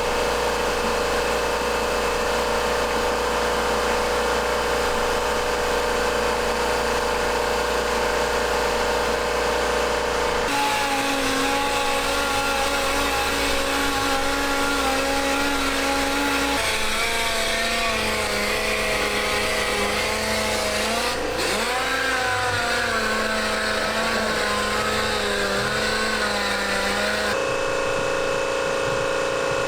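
Handheld power tool's motor running steadily, used for sanding and polishing the tank. It comes in several cut-together stretches, and its pitch wavers under load in the later part.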